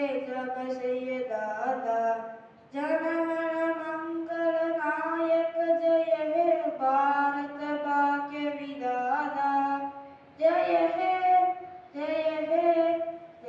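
A child's voice singing a slow song in long held notes, phrase after phrase with short breaths between.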